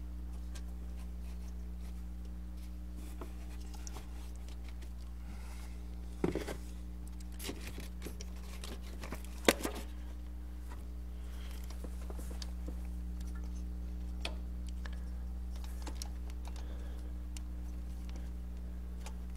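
Hands working a new air-conditioning compressor belt around the engine's pulleys: scattered rubbing, rustling and small clicks, with two sharper knocks about six and nine and a half seconds in, over a steady low hum.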